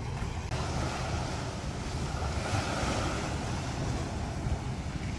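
Sea surf washing onto a beach, with wind buffeting the microphone as a low rumble.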